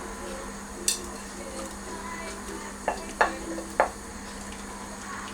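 A wooden spoon stirring soup in a cooking pot, knocking sharply against the pot four times, mostly in the second half.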